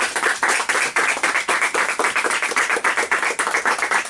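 A small group of people clapping by hand, a short round of applause with many overlapping claps at an even pace.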